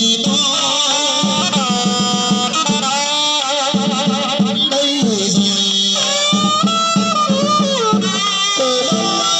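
Traditional Vietnamese funeral band music: a wavering melody over steadily repeated drum beats.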